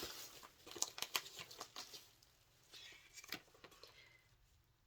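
Faint, scattered rustling and crinkling of paper wrapping being handled, which thins out and stops in the last second or so.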